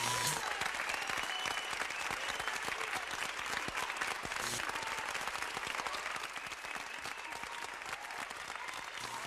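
Crowd applauding, a dense steady patter of clapping that eases slightly toward the end.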